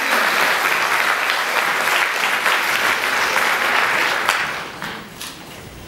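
Theatre audience applauding, dying away about four and a half seconds in.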